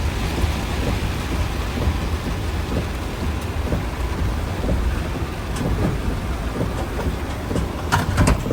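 Heavy rain beating on a moving vehicle, with a steady low road rumble underneath and a few brief clicks near the end.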